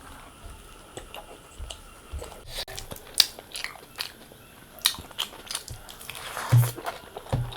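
A person biting and chewing food close to the microphone, with scattered sharp crunches and clicks.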